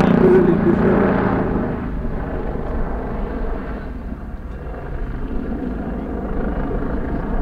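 MBB Bo 105 helicopter flying overhead while manoeuvring: a steady drone from its main rotor and twin turbine engines. It is loudest in the first second or so, then eases to a lower, even level.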